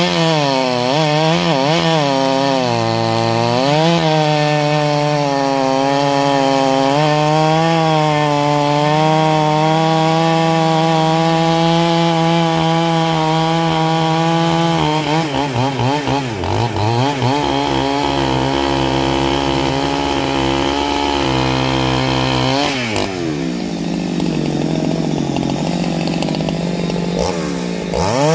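Two-stroke chainsaw, a clone of the Husqvarna 395, running at high revs under load as it saws through a thick log. Its pitch wavers and sags as the chain bites. The revs drop more than halfway through and rise again near the end.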